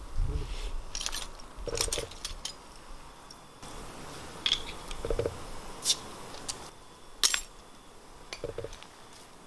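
Scattered sharp clicks and clinks of glass and metal, a second or so apart, as a bottle of Tiger beer is handled and its cap opened.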